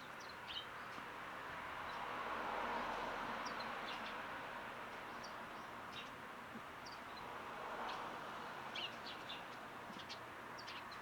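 Small garden songbirds giving short, scattered high chirps, over a steady rushing background noise that swells about three seconds in.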